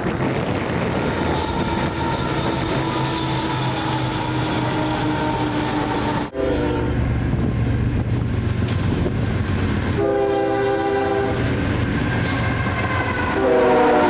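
Diesel freight trains: locomotives rumbling with a steady drone as a train approaches. After an abrupt cut, another freight's lead locomotive sounds its air horn in a short blast, then a longer one, and a final blast near the end that falls in pitch as it passes close, over the engine rumble.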